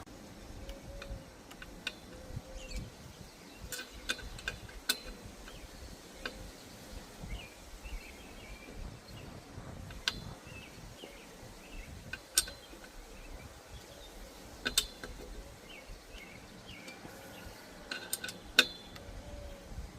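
Scattered sharp metallic clicks and clinks from work on a bicycle, with faint bird chirps behind them.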